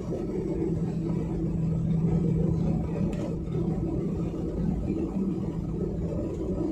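Airliner cabin noise: a steady low rumble and hum of the jet engines heard from inside the passenger cabin.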